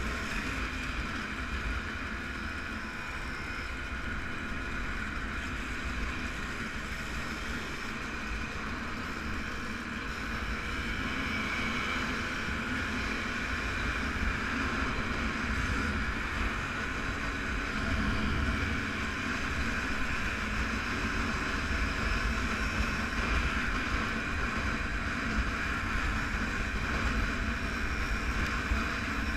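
Vintage motorcycle engine running steadily under way, heard from on board the bike, with wind rumbling on the microphone.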